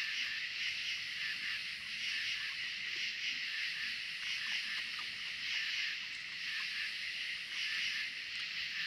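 Steady chorus of night insects, a dense high-pitched buzz that pulses gently.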